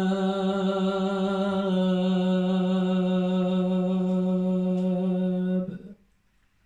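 A man's voice chanting Qur'anic recitation, holding one long steady note on the drawn-out last word of the verse ('al-albab'), which ends the surah passage. It stops about five and a half seconds in.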